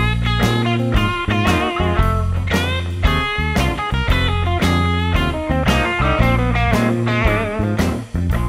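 Background music: a blues-rock guitar lead with bent, wavering notes over bass and a steady beat, with a brief break near the end.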